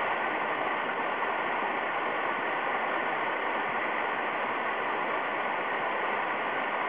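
Waterfall rushing steadily: an unbroken hiss of falling water.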